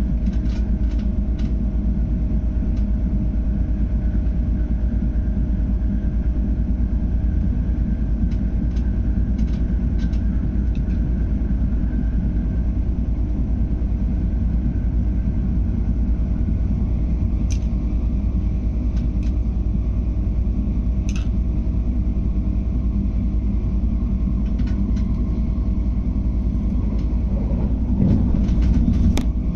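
MTR Airport Express electric train at speed, heard from inside the carriage: a steady low rumble with a steady hum over it and faint scattered ticks. A short louder rush comes near the end.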